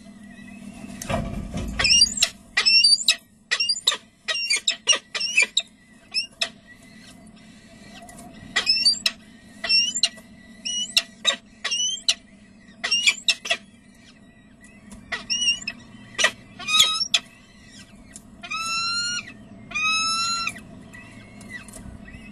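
Peregrine falcon chicks begging while an adult feeds them: bursts of short, high, squeaky chirps through the first two thirds. Near the end come two longer calls of about a second each. There is a low bump about a second in and a faint steady hum underneath.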